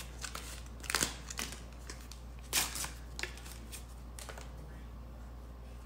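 Small foil wipe packet being torn open and the wipe pulled out: a handful of short crinkles and rustles, the loudest about two and a half seconds in.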